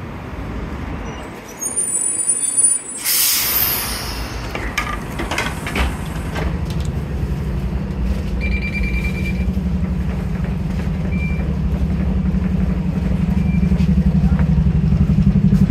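Bus interior sounds: a loud air hiss from the bus's air system about three seconds in, a card-reader beep around eight seconds in, then the bus engine running with a steady hum that grows louder toward the end.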